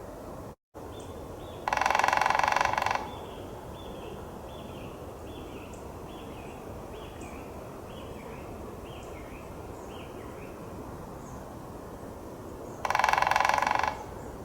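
Two loud, harsh bird calls, each lasting just over a second and about eleven seconds apart. Between them, a smaller bird gives a faint series of short, high, falling notes over steady outdoor background.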